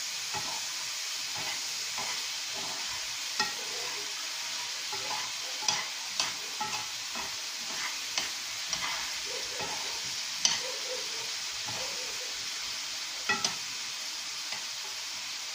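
Zucchini, onion and sausage frying in a pan with a steady sizzling hiss while being stirred; the utensil knocks against the pan in a scatter of short clicks, the loudest about ten seconds in.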